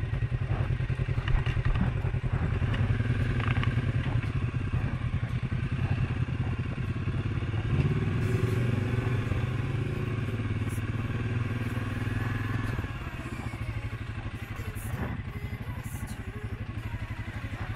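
Suzuki KingQuad 750 ATV's single-cylinder engine running at low trail speed, the throttle opened a little about eight seconds in and eased off a few seconds later. A few light knocks.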